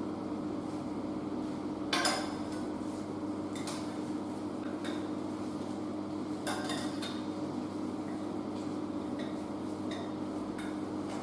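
Metal saucepan clanking and knocking against the sink while its water is drained off: a handful of separate knocks, the loudest about two seconds in, over a steady hum.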